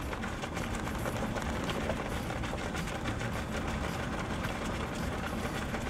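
A vehicle rolling slowly along a dirt road makes a steady low rumble of engine and tyres, with faint irregular ticks that fit the footfalls of a pack of runners.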